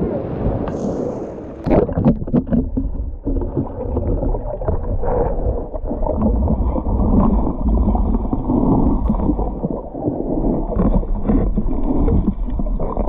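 An Asian elephant plunging into a pool with a big splash, a hissing spray with a couple of sharp slaps in the first two seconds. Then a muffled churning and gurgling of water heard from beneath the surface as the elephant moves about underwater.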